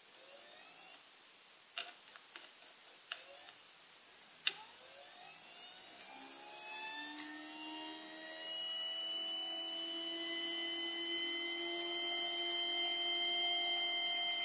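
Blender motor rewound to run on 12 volts, running with a high hiss from its brushes. For the first few seconds it runs unevenly, with short repeated rising sweeps and a few sharp clicks; about six seconds in it speeds up, its whine rising in pitch and getting louder, then holding at a steady high speed.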